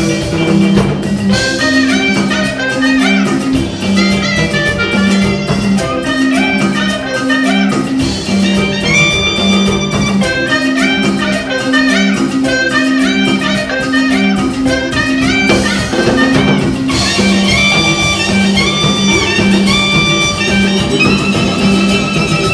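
A band playing up-tempo Latin dance music, cumbia-style, with a repeating bass line, drums, guitar and horns.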